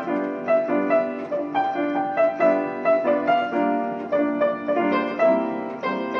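Piano playing a flowing melody over chords, with new notes struck about two or three times a second.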